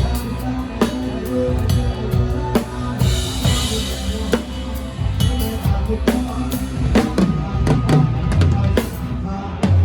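Live drum kit playing a steady groove of kick and snare hits, heard close up over the rest of the band's music.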